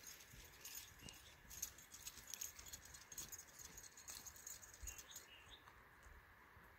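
Faint scraping and crumbling of loose dry soil being dug and scooped by hand: a run of light, quick scratches and clicks that thins out after about five seconds.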